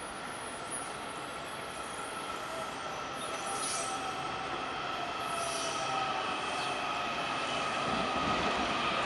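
Washington Metro 7000-series train pulling into the platform: a high, steady whine over the rumble of the wheels on the rails, growing louder as it approaches, with the rumble swelling as the front car draws level near the end.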